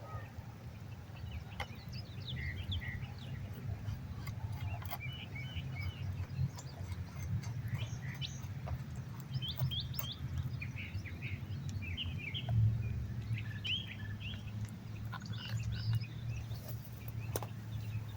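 Wild birds chirping and calling in short, repeated chirps, over a steady low rumble, with a few faint sharp clicks.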